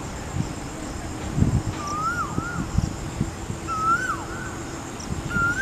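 An animal calling three times, roughly every one and a half to two seconds. Each call is a short note that rises slightly and then drops away. A faint steady hum runs underneath.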